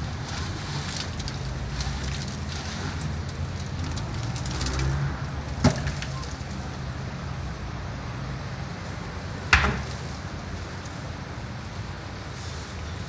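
Two sharp knocks, one about six seconds in and one near ten seconds, over a steady low rumble.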